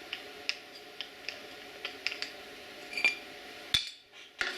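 Light metal ticks and clinks as the parts of a mower-deck spindle (washer, notched pulley, nut) are handled, over a steady machine hum that cuts off about two-thirds of the way through, followed by a few sharper clicks.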